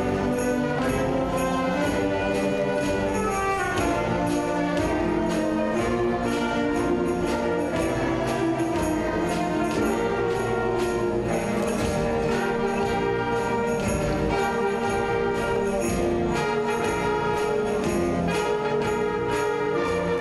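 School concert band playing a piece, with brass and saxophones and percussion marking a steady beat.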